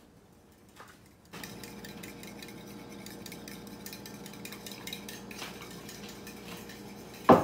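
A utensil whisking an egg-white mixture in a bowl: steady scraping and clinking against the bowl that starts about a second in, ending with one sharp knock.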